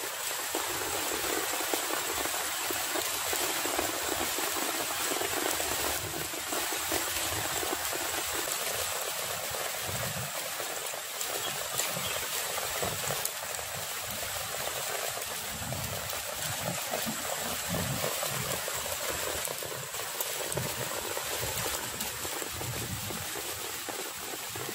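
Muddy floodwater rushing and churning over the ground, a steady rushing noise.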